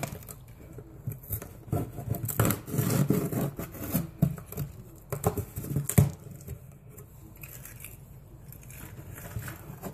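A car key scraping and cutting through the packing tape on a cardboard shipping box, in a run of short scratchy strokes and taps, with a sharp knock about six seconds in and fainter handling of the cardboard after it.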